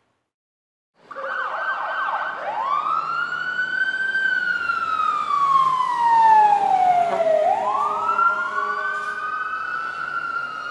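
Emergency vehicle siren starting about a second in. It begins with a fast yelping warble, then switches to a slow wail that climbs, falls over a few seconds and climbs again near the end.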